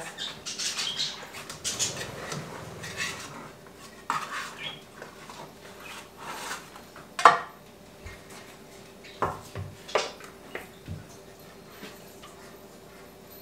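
A spatula scraping around the inside walls of a metal loaf pan to free a baked pound cake from the edges, with scattered clinks and knocks of utensil against the pan; the sharpest clink comes a little past halfway.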